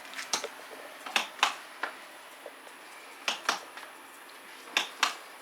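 Sharp clicks of the foot-pedal power switch on a Kärcher electric pressure washer being pressed, mostly in quick pairs, about five times; the motor does not start running.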